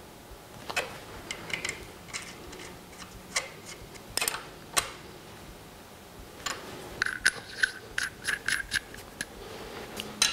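Small metallic clicks and taps of a spanner working the brass main jet and jet holder of a carburettor clamped in a steel bench vise, with a quicker run of ringing clicks from about six and a half to nine seconds in.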